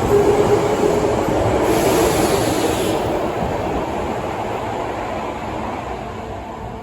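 Osaka Metro 22 series subway train pulling away from the platform, its running noise gradually fading as it recedes. A brief hiss comes about two seconds in.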